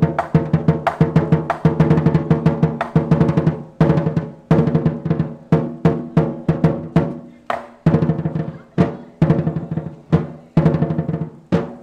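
Large Chinese lion dance drum beaten with two wooden sticks, in quick runs of strokes and rolls broken by short pauses.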